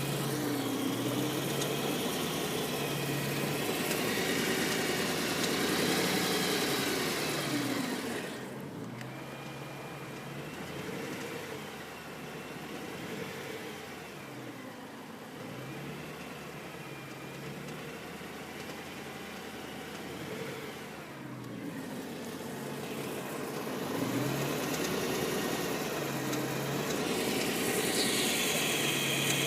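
2010 BMW M3's V8 engine running hot, heard from underneath, its revs rising and falling several times. It has a ticking from the bottom of the engine that sounds as if something is loose inside.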